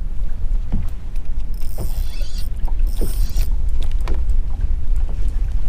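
Small waves slapping against a bass boat's hull, with short knocks and splashes about once a second over a steady low rumble.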